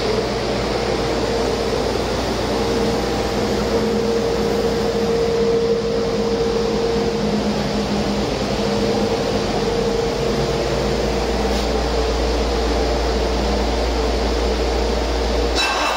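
Cummins ISC inline-six turbo diesel running steadily at an even speed on a test run, which the seller says runs excellent.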